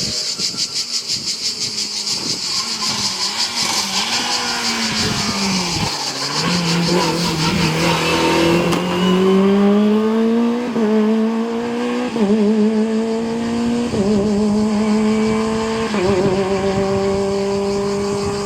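Historic racing car engine accelerating hard. Its note wavers at first, then climbs with a gear change every second or two.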